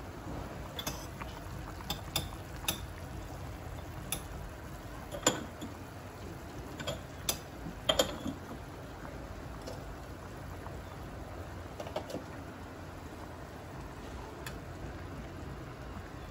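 Pot of broth boiling on a gas stove burner: a steady low rush with scattered sharp ticks and pops, bunched in the first half.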